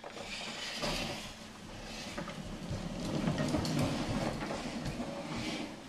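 Plastic wheels of a baby's push-along walker toy rolling over a hardwood floor, a steady rolling rattle that grows louder around the middle.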